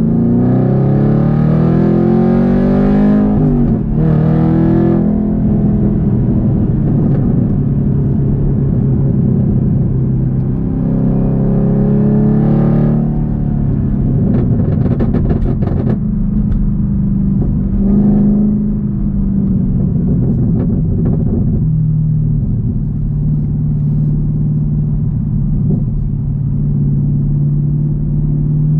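Supercharged 6.2-litre V8 of a 2022 Camaro ZL1 heard from inside the cabin through a new H-pipe catback exhaust: it pulls with rising pitch for about three seconds, then settles into a steady drone. Another short pull comes near the middle, followed by a string of crackling exhaust pops on deceleration.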